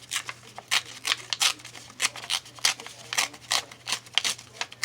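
Scissors snipping repeatedly in short, sharp cuts, about three a second.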